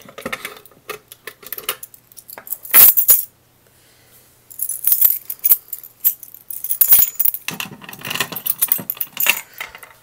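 A ring of keys jangling and clinking as it is handled, in short irregular bursts. There is a louder clatter about three seconds in, a brief pause, then the jingling resumes.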